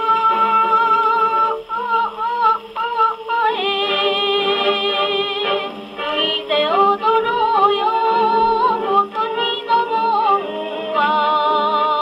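A 1950 78 rpm record playing on a Columbia Model G-241 portable wind-up gramophone: a boogie song with held instrumental notes and a singing voice, heard straight from the gramophone's acoustic soundbox.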